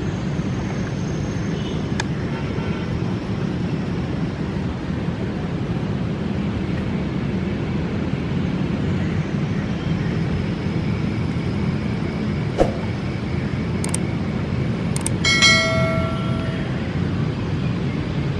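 Pakistan Railways GEU-40 diesel-electric locomotive running as it slowly approaches, a steady low rumble. About fifteen seconds in, a brief pitched horn toot sounds over it, just after a couple of sharp clicks.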